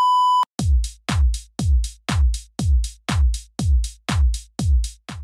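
A short electronic beep, then an electronic music beat: a deep drum-machine kick about twice a second, each hit falling in pitch, with a bright crisp hit on top of each.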